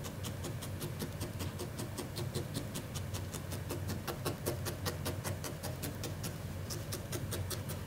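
A felting needle jabbing rapidly into wool over a felting pad, a quick run of short crisp pokes several a second, as a final layer of wool blend is felted down. A low steady hum runs underneath.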